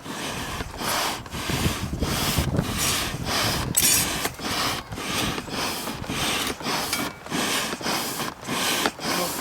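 Air pumped by hand into a charcoal forge fire, a rushing whoosh repeated in steady strokes about twice a second, to bring the metal up to heat.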